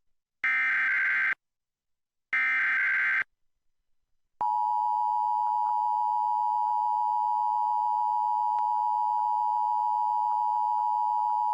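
Emergency Alert System SAME header: two short screeching digital data bursts, each just under a second. About four seconds in, the steady two-tone EAS attention signal (853 and 960 Hz) starts and holds at an even level.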